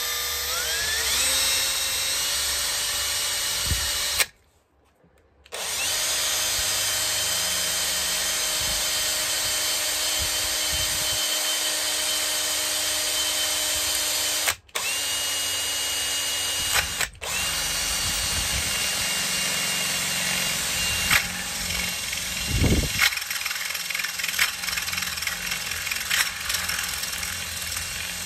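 Power drill driving a step drill (cone cutter) through a plate held in a vice. The motor whine rises as it speeds up, cuts out for about a second a few seconds in, then runs on with two short stops. In the last several seconds the cutting gets rougher and more uneven as the bit bites.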